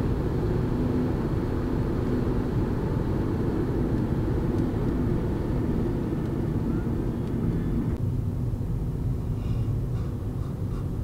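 Car road noise heard from inside the cabin while driving: a steady low rumble of tyres and engine, a little quieter near the end.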